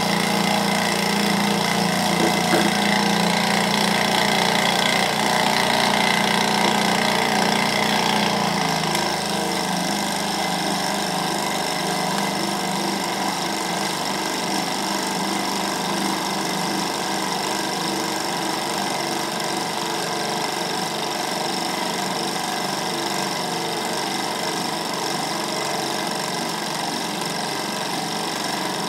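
Small twin-cylinder Stirling engine running steadily, its pistons and linkages turning fast while it drives a small generator. About eight seconds in, its low hum drops away and it runs on a little quieter.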